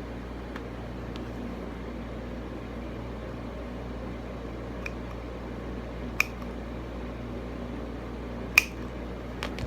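Wire cutters snipping the ends of the Cat-6 cable's eight conductors: a few sharp clicks, the two loudest about six and eight and a half seconds in, over a steady low hum.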